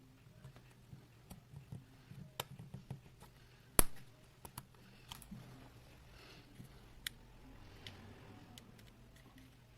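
Scattered light clicks and taps of small tools and parts being handled during a phone repair, with one sharp, louder click a little under four seconds in, over a faint steady hum.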